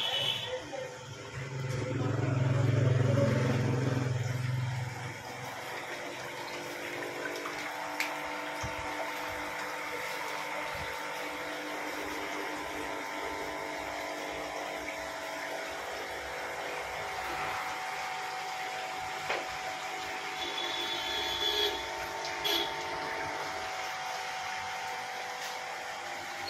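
Aquarium shop hum: air pumps and filters running steadily, several steady tones over a low watery hiss. A louder low drone sits over it for a few seconds near the start.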